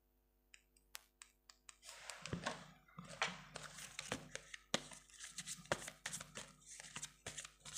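Tarot cards being shuffled by hand. There are a few separate clicks about half a second to two seconds in, then a dense, rapid crackle of cards sliding and snapping against each other.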